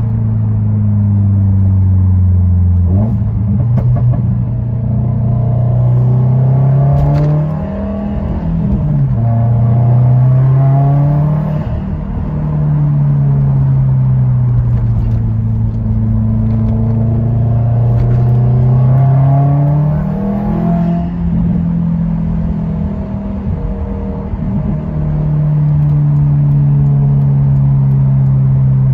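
Subaru WRX STI's turbocharged flat-four heard from inside the cabin through a Tomei titanium cat-back exhaust, driving through the gears. The engine pitch climbs under acceleration and falls off sharply at upshifts, twice in the first twelve seconds and once more about twenty seconds in, then holds a steady drone at cruise near the end.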